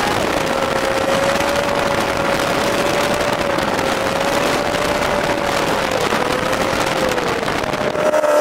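Volkswagen-engined dune buggy driving at a steady cruise, engine running under a constant even noise of road and wind, with one steady engine note that sags a little in pitch about six seconds in as it eases off.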